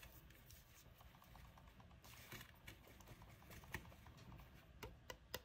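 Near silence with a few faint scattered clicks and rustles as hands handle old cotton thread on cardboard thread cards, pulling lengths of it taut to test whether the thread is still strong.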